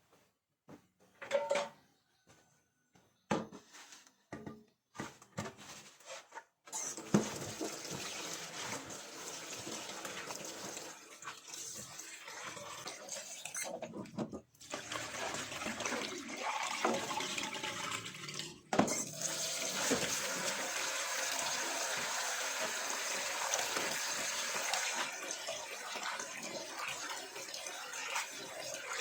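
Water running from a tap into a sink, starting about a quarter of the way in and going on steadily, with two brief breaks. Before it come a few scattered knocks and clatters.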